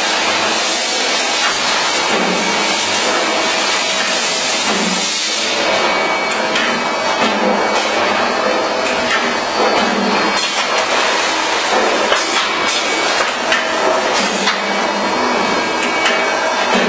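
Automatic sandpaper cutting machine running: a steady mechanical noise as rollers feed abrasive paper off the roll, with scattered knocks.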